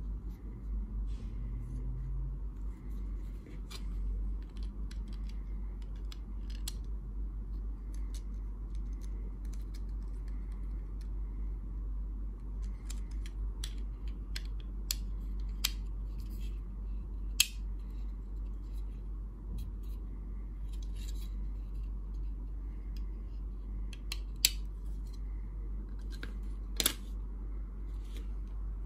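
Small 3D-printed plastic case being handled and taken apart: scattered light plastic clicks and knocks, with a few sharper snaps in the second half, over a steady low hum.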